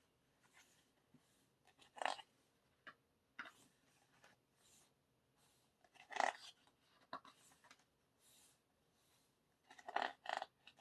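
Pages of a K-pop album's photo book being turned: short paper swishes a few seconds apart, with two quick ones close together near the end.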